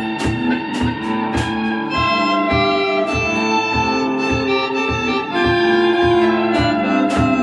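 Instrumental Middle Eastern/Turkish folk-style rock from a live band: two electric guitars over a steady drum-kit beat. Held organ-like notes join in about two seconds in.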